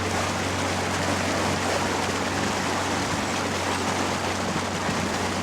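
Motorboat engine running steadily, with water rushing past the hull.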